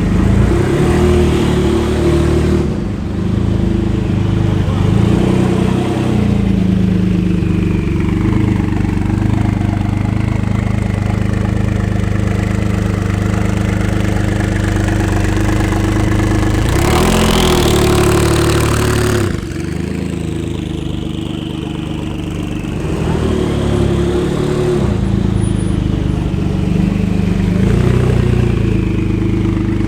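Jaguar XJ220S TWR's twin-turbo V6 running under way, its revs rising and falling again and again. Past the middle there is a louder, rougher surge of about two seconds that drops off suddenly.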